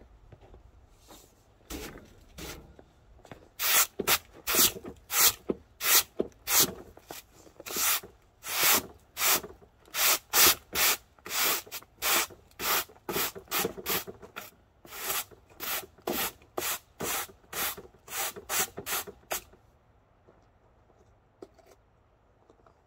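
Broom sweeping snow off a railroad flatcar's deck in quick, even strokes, about two a second, starting a few seconds in and stopping a few seconds before the end.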